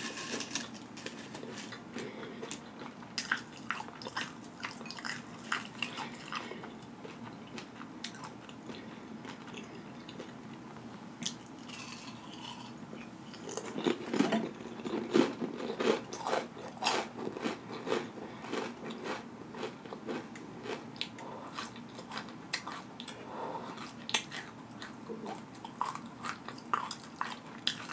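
Close-miked chewing of tortilla chips: crunching with wet lip smacking, in spells of quick short clicks, busiest in the middle and near the end, with a quieter lull before the middle.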